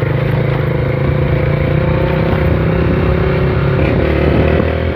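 Honda CG Titan motorcycle's single-cylinder four-stroke engine running at a steady, moderate speed, heard from the rider's seat.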